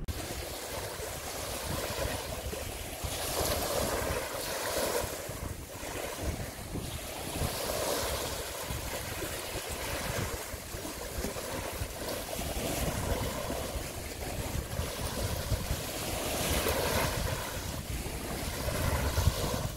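Sea waves washing in, swelling and fading every few seconds, with wind rumbling on the microphone.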